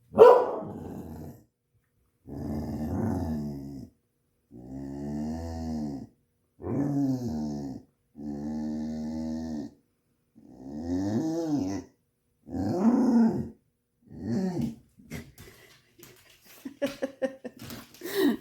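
A dog woo-ing: a string of about eight drawn-out calls, each a second or so long, bending up and down in pitch with short pauses between, then shorter yips near the end. It is the dog's impatient demand to be taken out for a walk.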